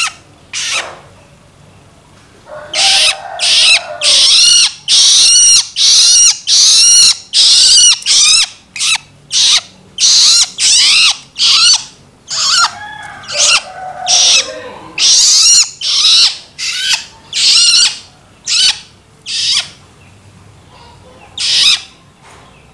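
Young long-tailed shrike (cendet) giving its begging call (loloan): loud, harsh, high-pitched calls repeated over and over at about one or two a second. A couple of single calls come at the start, then a steady run begins a few seconds in and stops near the end.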